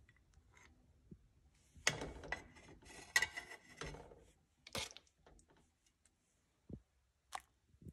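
Metal serving spoon scraping and knocking against a plate as saucy pasta is tipped onto it: about two seconds of clatter, then a few single sharp clinks.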